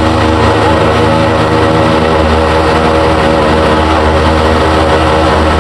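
Motorcycle engines held at steady high revs during a burnout, with the noise of the spinning rear tyres.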